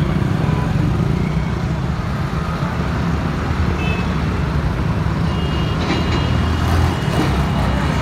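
Steady rumble of road traffic going past close by, with motorcycles and cars driving by. A few faint, high beeps come in the second half.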